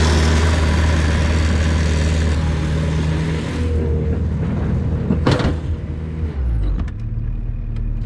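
Bobcat T590 tracked skid steer's diesel engine running at working speed, with a loud hiss of the tracks moving on snow for the first few seconds. There is a brief sharp whoosh about five seconds in, then the engine drops to a lower idle about a second later. A few light clicks come near the end.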